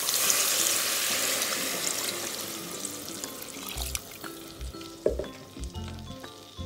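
Water poured in a steady stream into a pressure cooker onto browned mutton and spice paste, loudest at the start and thinning out over the first few seconds. Background music with a low beat comes in about halfway.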